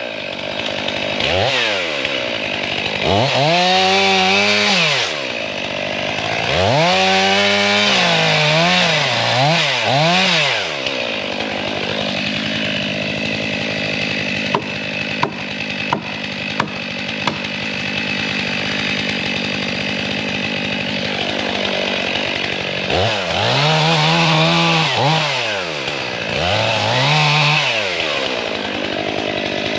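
Chainsaw revving up and down in three spells while cutting into a tree, dropping to a lower steady run in between. A few sharp clicks come midway.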